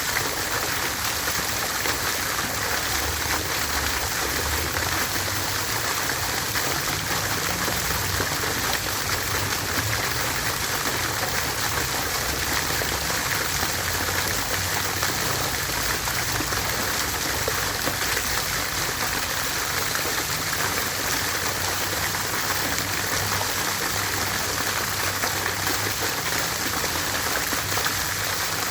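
Water fountain running, its falling water splashing in a steady, even rush.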